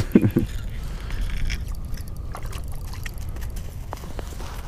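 Wind rumbling on the microphone, with a few faint clicks and taps as a bluegill is pulled up through the ice hole and set on the snow.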